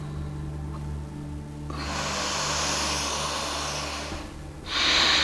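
Long audible breaths into a clip-on microphone: one slow breath starting about two seconds in, and another starting just before the end. Underneath is soft background music with sustained low notes.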